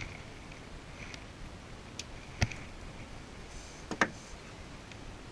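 A few sharp clicks and knocks from fishing tackle being handled in a small boat, over a faint steady hiss: a light click, a louder knock about halfway through, then a quick pair about a second and a half later.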